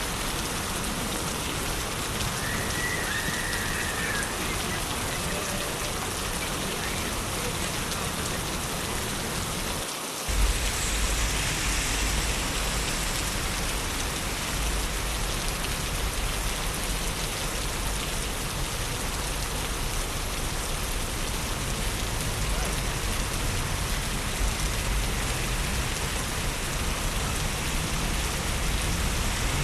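Steady rain falling on a city street, an even hiss of drops on wet pavement. About ten seconds in the sound briefly drops, then carries on with a deeper low rumble underneath.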